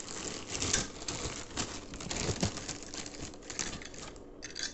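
Plastic packaging crinkling and rustling in the hands as a new washing-machine part is pulled out of its bag, with many small irregular crackles and clicks.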